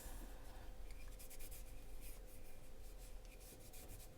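Faint scratchy rubbing and scrubbing of hand-cleaning the small parts of a disassembled folding knife, in many quick irregular strokes, over a faint steady hum.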